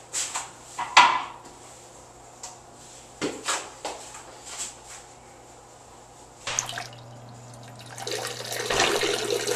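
Knocks and clacks in a restroom stall, the loudest about a second in as the toilet seat is lifted, over a faint steady hum. About eight seconds in, water starts rushing and keeps running.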